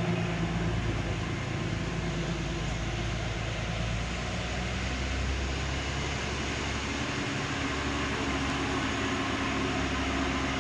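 Diesel engine of an APSRTC state transport bus running under load as it climbs a steep mountain road, a steady low drone.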